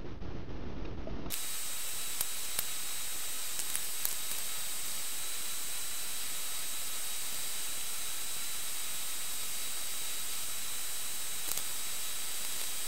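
Steady electronic hiss with a faint high-pitched whine, switching on abruptly about a second in, with a few faint clicks over it: background noise of the recording.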